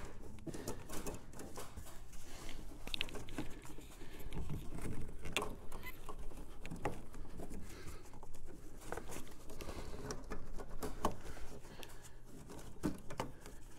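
Irregular light clicks, taps and rustling as gloved hands twist and push a new nickel-copper brake line through the cramped engine bay, the tubing knocking against nearby parts.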